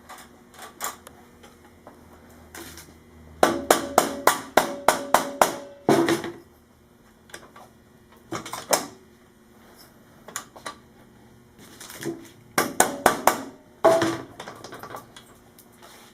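Rubber mallet tapping a motorcycle rear axle in through the swingarm and chain adjusters: light, sharp taps with a short metallic ring. There is a run of about eight quick taps about three and a half seconds in, single taps near six and nine seconds, and another quick run of about five near thirteen seconds.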